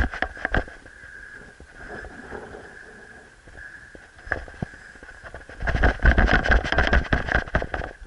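Wind buffeting the microphone in gusts, loudest right at the start and again from about six to seven and a half seconds in, with a steady high tone running underneath.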